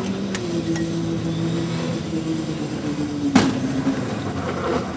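Demolition-derby car engines running steadily as the cars drive across a grass field, with one sharp knock about three and a half seconds in.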